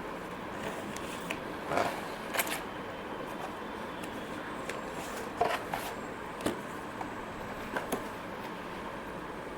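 Packaging and drone accessories being handled and unpacked: a few short rustles and clicks over a steady low hiss, the strongest about two seconds in and again around five to six seconds in.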